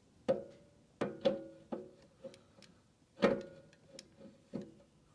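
About eight sharp metallic knocks at an uneven pace, each ringing briefly, the loudest about three seconds in: a new pressure-washer pump being worked and knocked onto the engine's keyed crankshaft.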